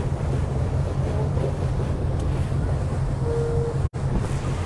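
Motorboat underway: the engine drones steadily under wind buffeting the microphone and water rushing past the hull, with a brief cut in the audio about four seconds in.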